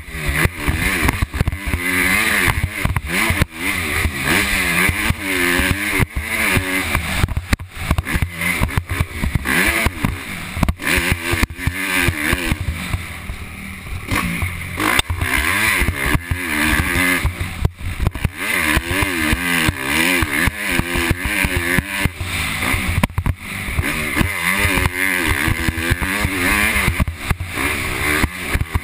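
Motocross bike engine ridden hard, revving up and falling back again and again as the rider works the throttle and gears. It eases off for a few seconds around the middle, then picks up again.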